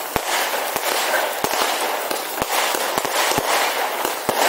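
Aerial fireworks display: a dense crackling hiss with sharp bangs going off irregularly, about three a second.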